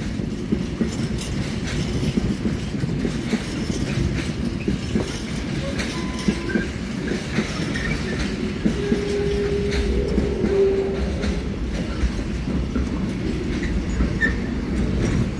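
A container freight train's flat wagons, some empty and some carrying shipping containers, rolling past with a steady rumble and wheels clattering on the rails. A short steady whine rises out of the rumble about two-thirds of the way through.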